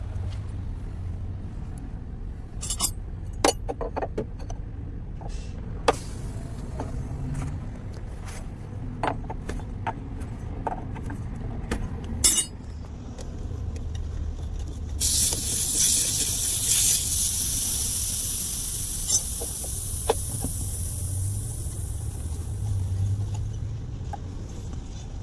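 Gas hissing from the brass refrigerant fitting of an under-dash truck air-conditioning evaporator: it starts suddenly and fades away over about eight seconds, the kind of hiss made when a charging line is purged or gas is let into the unit. Before it come a few sharp metallic clicks of tools, over a low steady rumble.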